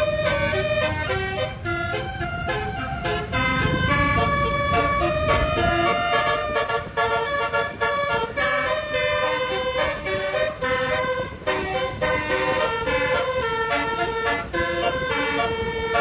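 Tour bus's basuri telolet horn, a set of roof-mounted trumpet horns, playing a quick tune of short stepped notes over a steady low rumble.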